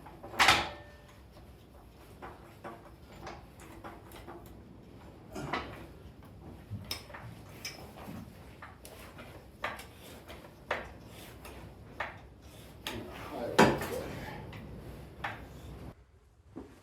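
Irregular clunks and knocks of a wheel and tools being handled during a test fit. One heavy knock comes just after the start and another about two-thirds of the way through, with lighter taps between.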